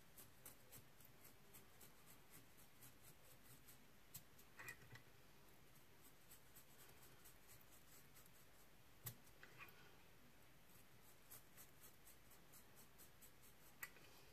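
Razor blade cutting and shaving spun deer hair on a fly: a run of faint crisp ticks, with a few sharper clicks here and there.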